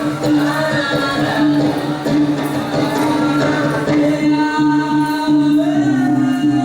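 Dance accompaniment music: a singing voice carrying a melody over a steady held low drone.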